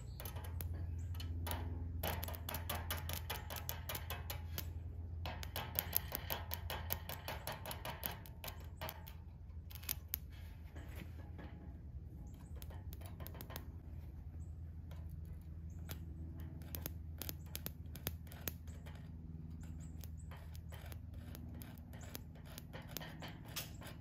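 Coat-hanger wire clamped in a jumper cable off a car battery, crackling and sparking in irregular runs of sharp clicks as it is scratched against steel angle iron. It cannot hold a steady arc: the battery will not run the wire as a welding rod.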